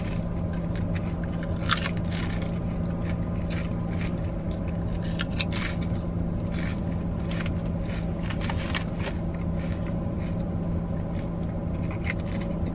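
Potato chips being crunched and chewed by two people, with sharp crisp crunches at irregular intervals. Under them runs the steady low hum of the car's cabin.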